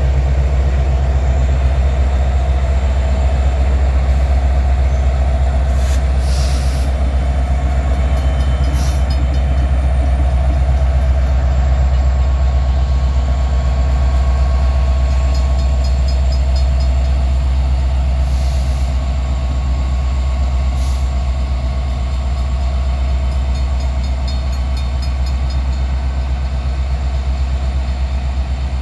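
A long freight train of empty ore cars rolling past steadily, with a continuous low rumble and a faint, thin squeal from the wheels.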